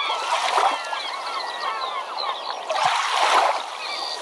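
A flock of birds calling, many short rising and falling cries overlapping, with two louder rushes of noise like moving water, about half a second in and again around three seconds in.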